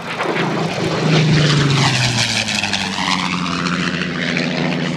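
Supermarine Spitfire's V12 piston engine droning on a low flypast. It is loudest about a second in, then its pitch drops as it passes and the drone carries on steadily.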